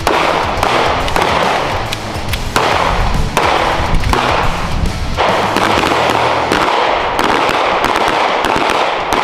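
Rapid handgun fire from several shooters at once, the shots overlapping in a dense, irregular crackle.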